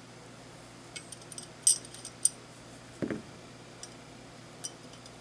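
Small metal parts clicking and tapping as a part is slid back onto the KAC URX 3 aluminium rail handguard, with a duller knock about three seconds in.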